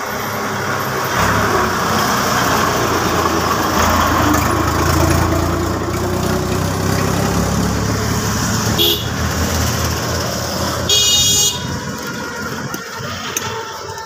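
Street traffic: a motor vehicle's engine rumbles close by, loudest in the middle, with a short high-pitched horn toot about eleven seconds in.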